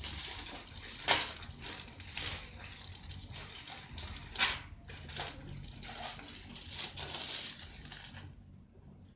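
Plastic packaging crinkling and rustling as it is handled, with sharp crackles about a second in and again about four and a half seconds in. It stops about eight seconds in.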